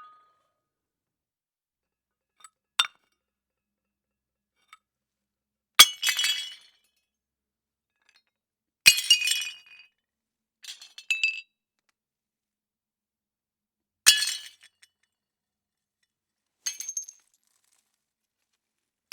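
Plates smashing one at a time: a sharp crash followed by ringing, clinking shards, about every three seconds, with a smaller tinkle of pieces after some of them.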